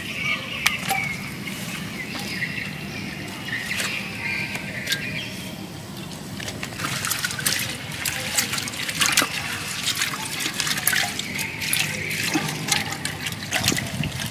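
Hands washing vegetables in water inside a clay pot: sloshing and trickling with many small splashes and knocks, busier in the second half.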